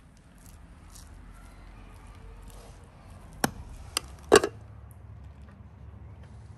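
Perforated metal skimmer stirring cooked rice in an aluminium pot, then knocking against the pot three times in quick succession, the last knock loudest.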